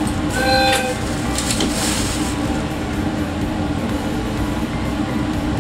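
KiHa 183 series diesel railcar idling at a station stop, a steady hum from its engines. A short electronic tone sounds about half a second in, and a brief hiss follows near two seconds.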